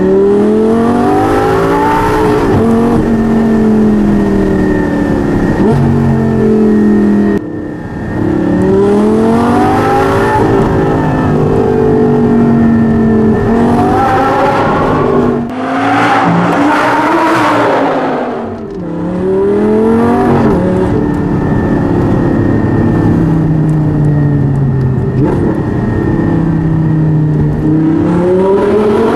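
Lamborghini Gallardo LP560-4's V10, breathing through an aftermarket Armytrix exhaust and heard from inside the cabin, accelerating hard again and again. Its pitch climbs, drops back at each gear change or lift-off, and climbs again. Near the middle it sounds fuller and brighter while the car passes through a short underpass.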